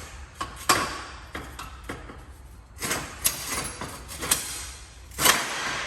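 Several sharp knocks, with bursts of scraping or rustling noise between them.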